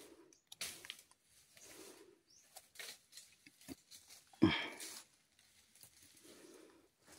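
Rustling and small clicks of hands working a stick and cord while setting a bird snare, with one louder sharp sound about four and a half seconds in.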